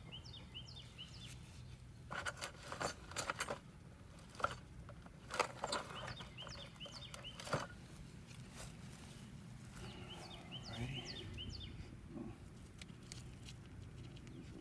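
Scattered sharp metallic clinks and knocks from hand work on a car's brakes, the loudest about five seconds in. A songbird repeats a quick chirping phrase three times in the background.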